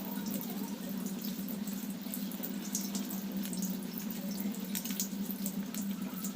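Water running steadily from a tap into a sink, with small splashes and ticks.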